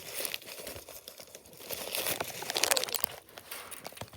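A bag of animal feed being torn open and crinkled in the hands, with crackling rustles and little clicks, loudest partway through.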